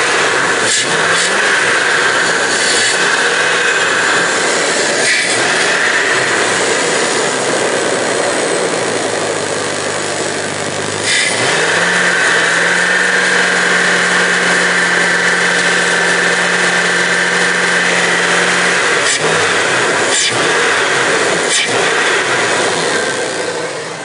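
Dodge van engine running with its air cleaner off, the intake noise loud through the open throttle body as water is sprayed into it to burn off carbon. About halfway through the engine speeds up and holds a higher steady note, then settles back a few seconds before the end.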